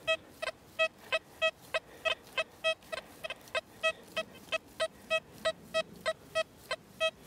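XP Deus II metal detector giving its high tone, tone 3 of the General program, as the coil sweeps over a coin buried about 23 cm deep: a string of short beeps of one pitch, about three a second. It is a loud, clear detection of the non-ferrous coin target.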